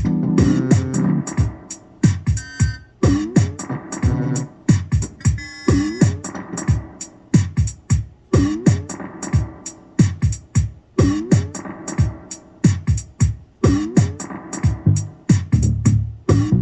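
Electronic music played on a hardware synthesizer and drum-machine setup: a steady programmed drum beat under sequenced synth bass notes, with a short upward-sliding synth blip repeating every couple of seconds.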